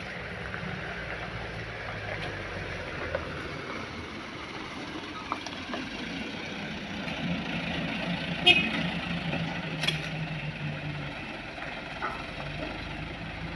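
A truck engine idling with a steady low hum, and sharp metal knocks, the loudest about two thirds of the way in and another a second and a half later.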